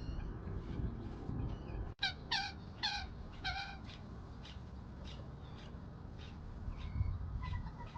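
Birds calling: four loud, harsh calls in quick succession about two seconds in, among scattered short chirps, with a rapid run of short notes near the end, over a steady low rumble.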